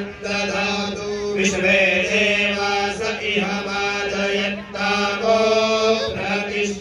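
Hindu priest chanting Sanskrit Vedic wedding mantras in a sung, melodic style, over a steady low hum.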